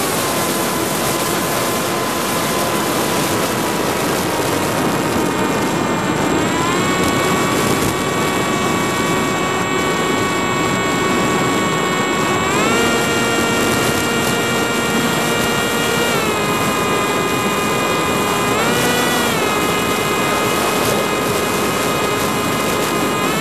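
FPV racing quadcopter's brushless motors and propellers whining over a steady rush of air, heard from on board. The pitch of the whine glides up or down to a new level several times as the throttle changes, rising about six seconds in and again around twelve seconds, dropping around sixteen, with a short blip near nineteen seconds.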